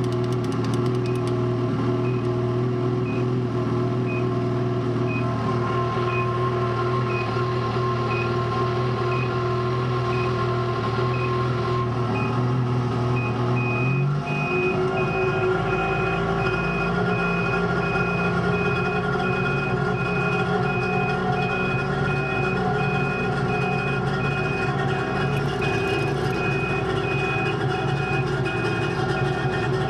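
Ski-Doo 800 E-TEC two-stroke snowmobile engine running steadily while the gauge beeper sounds short beeps about once a second. About halfway through, the engine note changes and the beeps quicken to about two a second as the engine goes into its summer-storage oiling mode, with OIL on the display.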